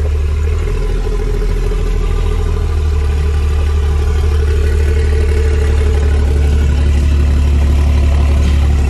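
12-valve Cummins 5.9 L inline-six diesel, with an open downpipe, pulling the truck down the road, heard loud from inside the cab. It is a steady low drone that builds a little louder through the middle seconds.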